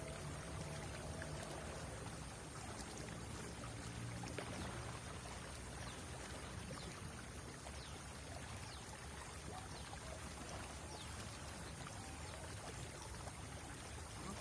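River water running steadily.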